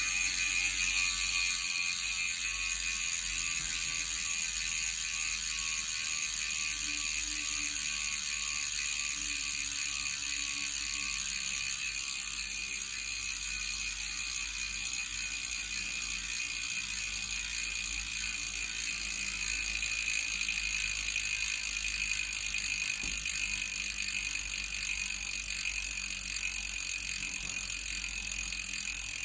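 Shimano rear hub freewheeling: the pawls click rapidly and steadily against the ratchet as the rear wheel spins without pedalling, slowly growing quieter.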